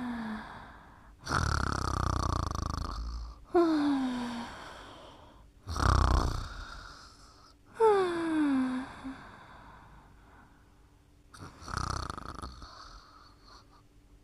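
Sleep snoring: three rough, noisy snores, each alternating with a thin whistle that slides steadily down in pitch, in a slow, uneven breathing rhythm.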